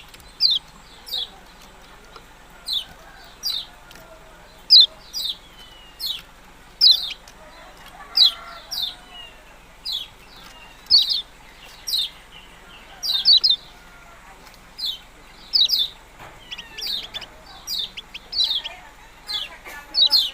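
Kecial kuning, a small yellow bird, giving short sharp 'ciak' chirps, singly or in quick pairs about once a second, each chirp falling fast in pitch.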